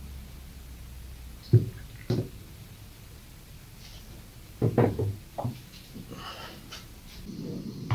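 Metal coffee pots and a lid knocking on a wooden tabletop as they are handled and set down. There are two single knocks about half a second apart, then a quick cluster of three or four about two and a half seconds later.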